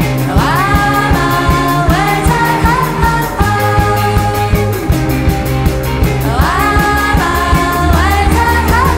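Background music with a steady beat and bass line, its lead melody sliding up into long held notes twice, once at the start and again about six seconds in.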